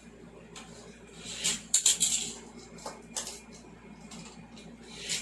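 Hot Wheels die-cast toy car running down a plastic gravity-drop track: a short rolling rush of wheels with a few sharp plastic clacks, loudest about one and a half to two seconds in, then a couple of single clicks.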